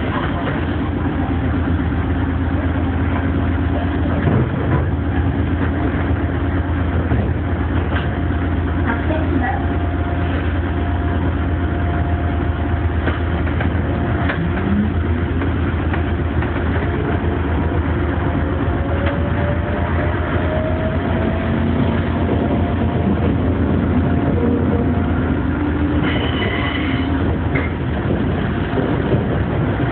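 Electric train heard from inside the cab: a steady low hum while it stands. About halfway through, the traction motors start to whine, climbing steadily in pitch as the train pulls away and gathers speed.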